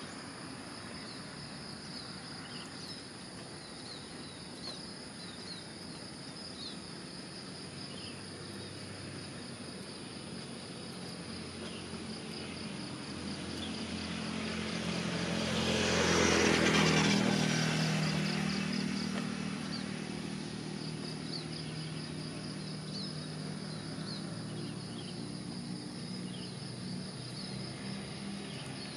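A motor vehicle passes by, its engine and tyre noise swelling to a peak just past the middle and fading away over several seconds. Under it runs a steady pulsing insect chorus with a few short chirps.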